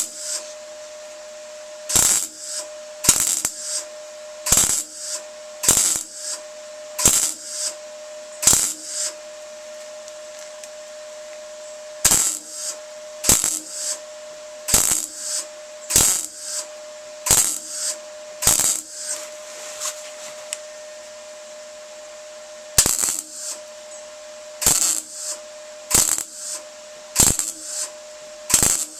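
Hand-tool work on metal: sharp metallic strikes, about one every second and a half, in runs with a couple of short pauses, over a steady faint hum.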